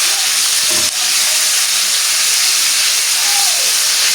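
Food frying in a hot pan, a loud, steady sizzle. The pan holds onions and the start of the minced-meat sauce for spaghetti.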